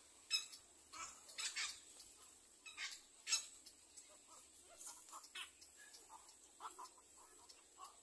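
Birds giving short, sharp calls: the loudest come in the first three and a half seconds, followed by softer, scattered calls.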